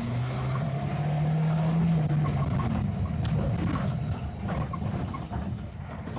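Lada 2102 estate's four-cylinder engine pulling the car away under throttle. Its note holds a steady pitch for about two seconds, then breaks into an uneven rumble. The engine has its pistons installed backwards and is deteriorating after some 500 km, rev-hunting and losing power.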